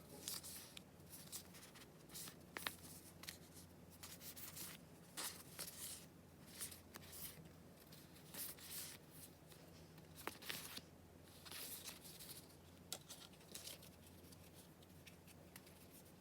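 Quiet, uneven rustling and crinkling of packaging being handled during an unboxing, with a few sharp ticks from items being set down or snapped, over a steady low hum.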